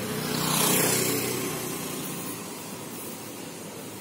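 A passing motor vehicle's engine rises to its loudest about a second in and then fades away, over the steady hiss of welding on a motorcycle's footrest bolt.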